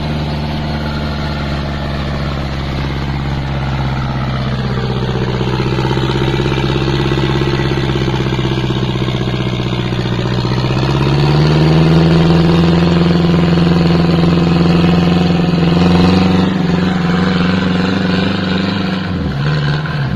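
Daihatsu Taft 4x4's engine running under load in deep mud. It revs up about halfway through, holds at higher revs, then eases off near the end.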